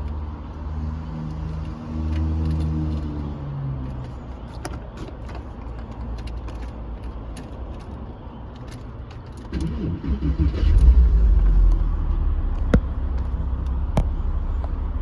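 Porsche 911 (996) Carrera's flat-six engine starting about ten seconds in and settling into a steady low idle, with scattered sharp clicks of keys and switches. A lower drone fades away during the first few seconds.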